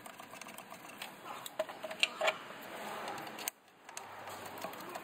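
Small clicks and light taps of bolts being started by hand into the plastic crankcase breather cover on a Dodge Ram 6.7L turbo diesel, with a couple of louder ticks about two seconds in.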